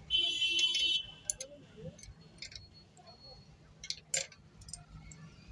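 Metal parts of a sewing machine's lower mechanism being fitted by hand: a loud, high metallic squeal lasting about a second, then a scatter of small metal clicks as the parts seat.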